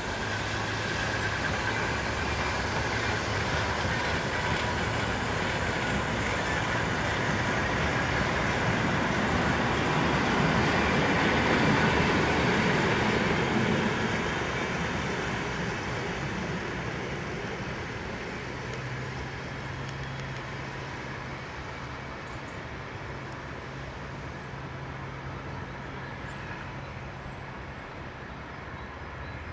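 DB class 220 (V 200) twin-engined diesel-hydraulic locomotive running under power as it hauls a long train of carriages away, engine sound and rolling stock together. It grows louder toward about twelve seconds in, then slowly fades as the train draws off.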